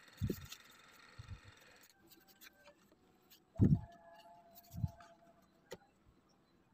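Cut pieces of stiff cardboard handled and laid down on a table: a few dull knocks, the loudest about three and a half seconds in, and a sharp tick near the end.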